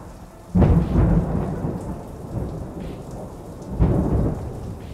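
Thunderstorm sound effect: two loud thunderclaps, one about half a second in and one near four seconds, each rumbling away over steady rain.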